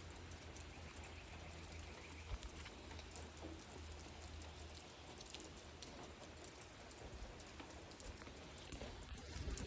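Rain falling steadily, faint, with scattered drops pattering and ticking and a low rumble underneath. A brief low thump comes near the end.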